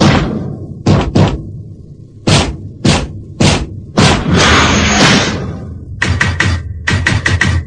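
Instrumental break of a dance track: loud, spaced drum hits, a hissing swell about four seconds in, then a fast run of even hits from about six seconds.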